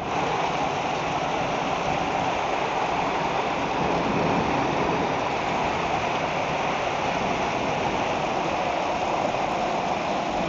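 Muddy storm runoff rushing over the ground and spilling in small falls over dry-stone walls: a steady splashing rush of water.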